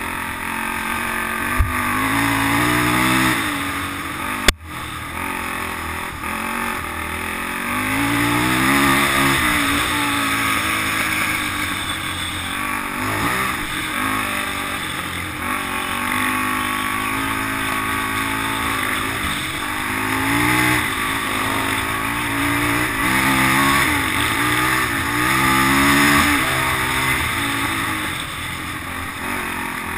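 Polaris Outlaw 500 quad's single-cylinder four-stroke engine revving up and down while ridden hard on a dirt trail, its pitch rising and falling again and again with the throttle, over wind rush on the microphone. A single sharp knock about four and a half seconds in.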